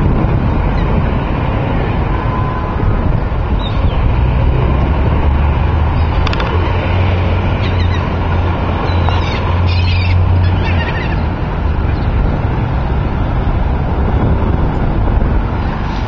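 Steady outdoor rumble of wind and engine noise, with a low engine drone swelling through the middle for several seconds, and a few short bird calls above it.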